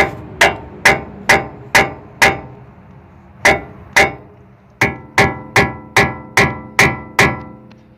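Hammer blows on a steel steering knuckle, striking around the lower ball joint stud to break its tapered seat loose. There are about fifteen sharp metallic strikes, about two a second, in three runs with short pauses between them. The later blows leave a ringing tone.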